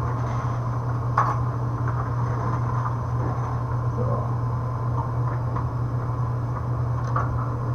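The electric motor of a Singer 281-1 industrial sewing machine running with a steady low hum, with a few light mechanical clicks from the machine.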